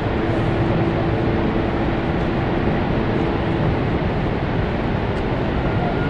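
Steady roar of a large waterfall, an even, unbroken rush of falling water. A low steady hum sits over it from just after the start and stops a little past halfway.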